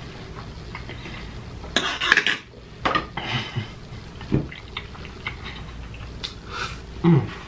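Cutlery clinking and scraping against dishes and food containers during a meal: a handful of short clatters, the loudest cluster about two seconds in.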